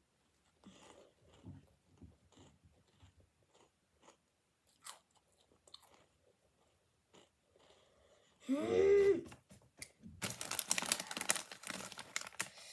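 Soft chewing of crunchy spicy corn snacks, then a short voiced groan about eight and a half seconds in. A loud crackling rustle fills the last couple of seconds.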